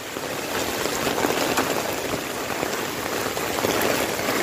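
Heavy typhoon rain and wind: a steady rushing hiss with scattered faint taps.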